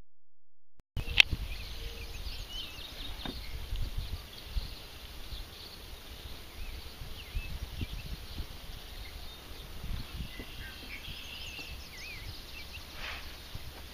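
Marsh birds chirping and calling in short, scattered notes over a steady low rumble of wind on the microphone. A sharp click comes just after the sound starts, about a second in.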